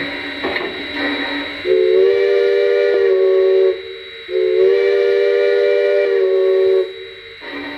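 Steam whistle sound from a Bachmann G-scale Shay locomotive's DCC sound decoder, heard through the model's small speaker: two long chime-whistle blasts of several tones together, the first about two seconds in and the second about four and a half seconds in, each lasting over two seconds, after a lower, quieter tone at the start.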